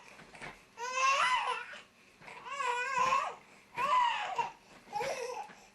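A baby babbling in four short, high-pitched vocal bursts whose pitch bends up and down, with short pauses between them.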